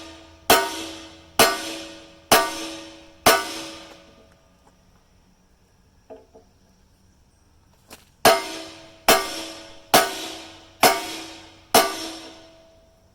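Heavy hammer blows on the steel of an excavator bucket's teeth and pins, about one a second, each ringing out metallically as it fades. Five strikes, a pause of a few seconds with a couple of light taps, then five more.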